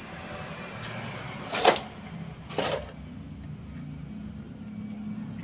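Two short clattering knocks about a second apart, from hand tools being handled as a taper tap for an M8 x 1.25 thread is set into a drilled exhaust-bolt hole. A steady low hum runs underneath.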